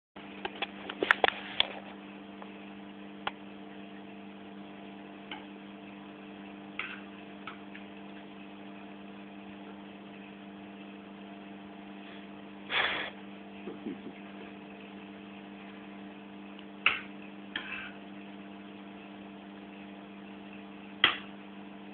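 Steady low electrical hum with scattered short clicks and clinks of someone eating at a plate: a quick cluster of them about a second in, then single ones every few seconds.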